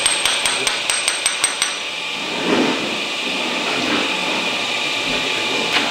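Hammer tapping on steel: a quick run of about eight sharp metallic taps with a ringing note, coming faster before stopping under two seconds in. A single sharp knock follows near the end.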